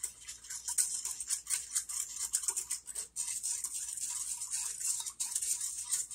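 A wire whisk beating sugar and water in an enamelled saucepan: a fast, steady run of scraping and rattling strokes as the wires rub against the pan.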